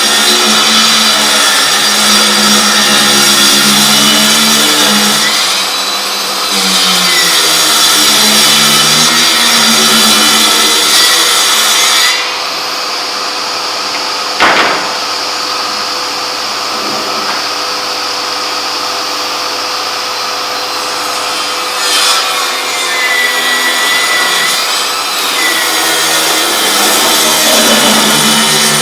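Milwaukee M18 Fuel 8-1/4-inch cordless table saw cutting wood. Loud steady cutting lasts about twelve seconds, then a quieter stretch of the saw running with a single sharp knock partway through, then loud cutting again for the last several seconds.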